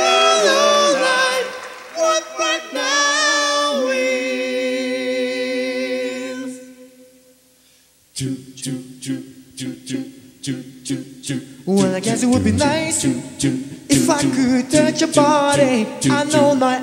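Male a cappella vocal group singing with no instruments: a held chord in several voices that fades out about seven seconds in, then a quick rhythm of vocal percussion with a low sung bass starts about a second later, and more voices join over it a few seconds after that.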